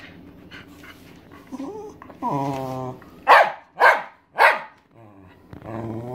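A 13-year-old Welsh Terrier begging for food: a long, drawn-out whining moan, then three sharp barks about half a second apart, then another long moan starting near the end.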